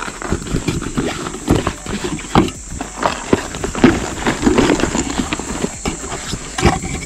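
Irregular clacks and knocks of fishing gear being handled, lures and tackle boxes being moved and set down close to the microphone.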